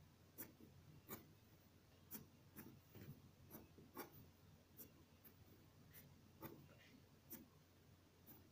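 Ballpoint pen scratching short, quick strokes on paper, faint, about one or two strokes a second.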